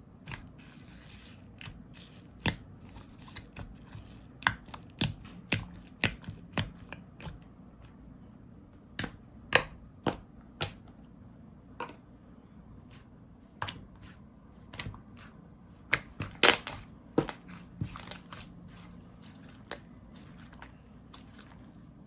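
Slime being pressed, stretched and poked by hand, giving irregular sharp sticky pops and clicks, several to a second in clusters with short pauses between.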